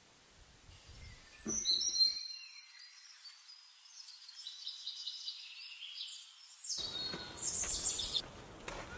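Songbirds chirping and trilling, several high calls overlapping.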